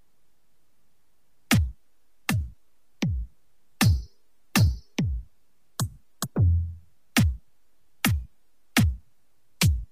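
Electronic kick drum samples from FL Studio played one at a time, about a dozen deep thumps at uneven spacing, each dropping quickly in pitch. A couple have a bright click on top, and one about halfway through rings longer and boomier, like an 808-style kick.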